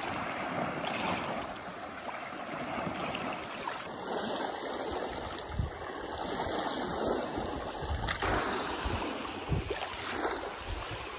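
Small waves lapping at the water's edge, a soft wash of water that swells and eases.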